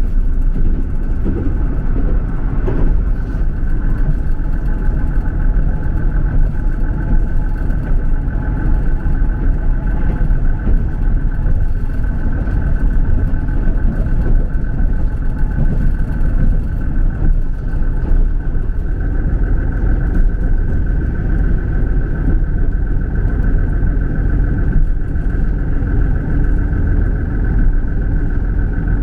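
Diesel multiple-unit train running steadily: a low rumble with a steady high tone over it.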